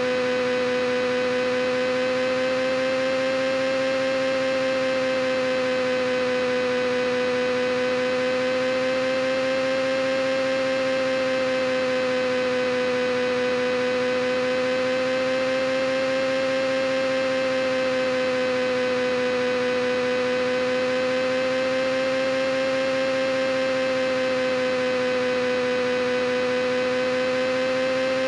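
A continuous steady hum: one strong mid-pitched tone with a lower tone under it and many overtones, wavering gently up and down in pitch about every six seconds.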